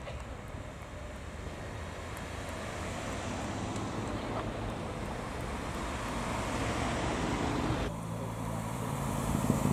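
Modern MINI hatchbacks driving slowly past one after another, their engines and tyres running steadily. Near the end one car's engine draws nearer and grows louder.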